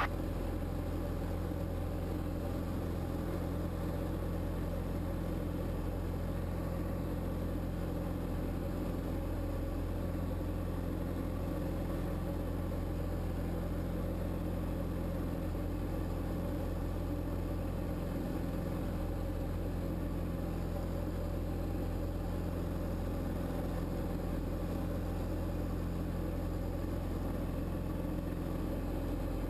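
A single-engine Diamond trainer's piston engine and propeller running steadily at takeoff and climb power as the plane lifts off and climbs out. The result is a constant, unchanging drone heard from inside the cockpit.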